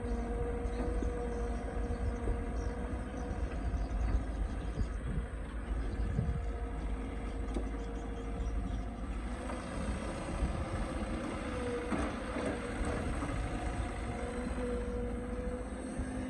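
Excavator's diesel engine running under load, with a steady hydraulic whine that wavers in pitch now and then and a few light knocks partway through.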